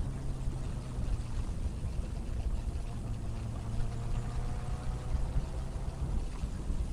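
Wind rushing over the microphone of a moving motorcycle, louder than the Benelli BN600i's inline-four engine running steadily underneath it.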